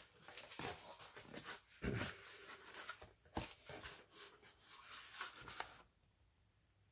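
Cardboard shipping box being handled and its flaps opened: irregular rustling and scraping with a few sharper knocks, stopping about six seconds in.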